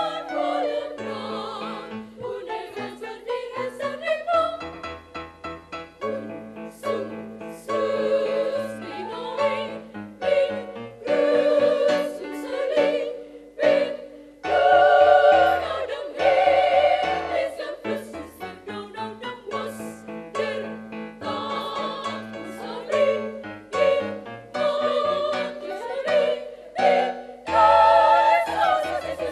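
Women's choir singing in parts, phrases of held notes with short breaks between them.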